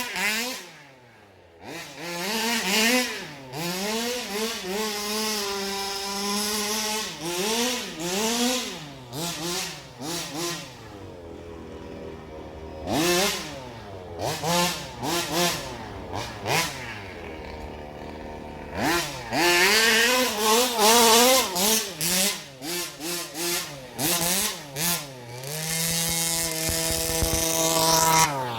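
1/5-scale petrol RC car's small two-stroke engine revving up and down as it is driven, the throttle blipped again and again between short spells of idle. It has a buzzy, motorbike-like sound.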